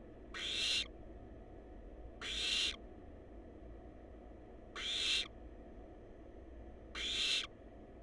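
Barn owl nestlings giving their hissing begging call, the "snore": four drawn-out rasping hisses, each about half a second long and about two seconds apart.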